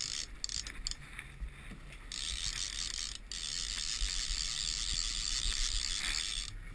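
Fishing reel running as line moves through it: a steady high whirr, patchy at first, then continuous with one brief break, stopping shortly before the end.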